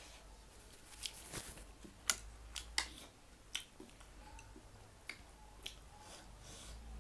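Close-up eating sounds: a scatter of sharp clicks and smacks from biting and chewing, about eight in all, most of them between one and four seconds in.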